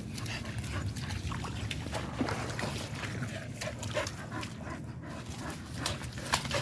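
Dogs gnawing at coconuts, making scattered short crunches and clicks over a low steady rumble.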